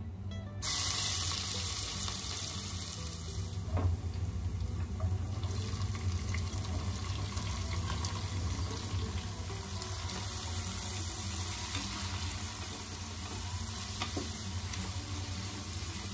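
Hot oil sizzling steadily in a steel pot as whole spices and then sliced onions fry, stirred with a wooden spoon, with a couple of light knocks.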